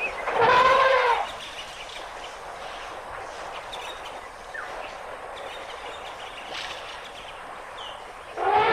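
African elephant trumpeting: one loud, brassy call lasting about a second, starting about half a second in. A second trumpet begins near the end, with faint bird chirps in between.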